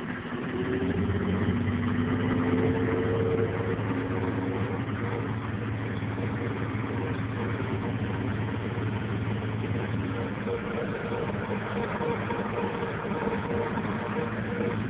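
Zetor tractor's diesel engine running, heard from inside the cab as the tractor drives through snow. The engine note climbs over the first few seconds, then holds steady.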